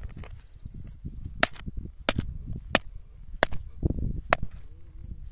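A rock being used as a hammer to pound a steel rebar stake into the ground: five sharp strikes with a short metallic ring, about one every two-thirds of a second, starting about a second and a half in.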